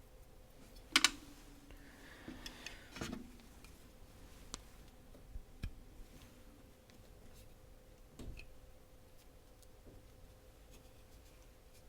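Small metal knife parts and tools handled on a table: a sharp double click about a second in, then scattered light clicks and taps.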